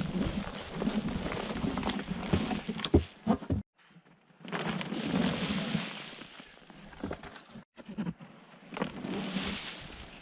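Branches and brush being handled and dragged: rustling and scraping with sharp cracks of twigs, stopping briefly twice.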